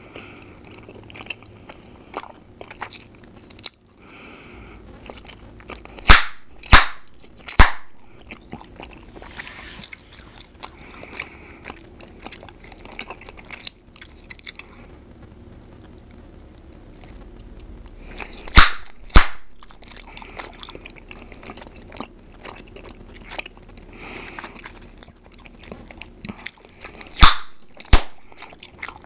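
Close-miked chewing gum being worked in the mouth with small wet clicks, broken by loud sharp gum pops: three about six seconds in, two just past halfway, and two near the end.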